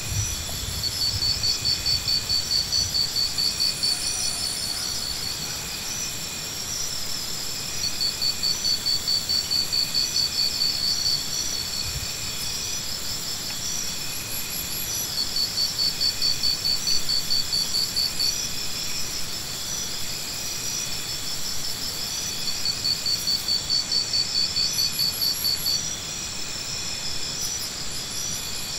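An insect trilling in regular bouts of about three seconds, one starting roughly every seven seconds, over a steady high-pitched whine.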